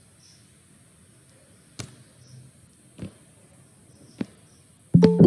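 Three computer mouse clicks about a second apart, then near the end a loud electronic chime of a few piano-like notes that ring and fade: a video-meeting notification sound that someone has joined the call.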